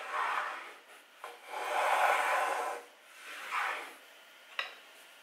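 Hand plane cutting shavings off a pine strip: three strokes, the last one short, then a single sharp knock.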